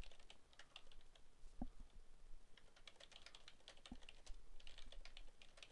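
Computer keyboard being typed on: faint, irregular keystrokes.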